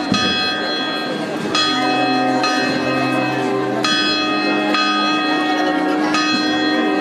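Church bells ringing, a new stroke about every two seconds, each one ringing on and overlapping the next.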